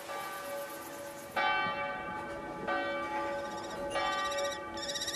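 A church bell tolling: three strokes about 1.3 seconds apart, the first about a second and a half in, each one ringing on with many overlapping tones.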